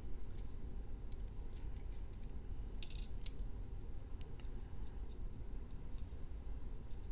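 Small metal lock parts clinking and clicking as they are handled, with a quick run of light clicks in the first three seconds and scattered ones after.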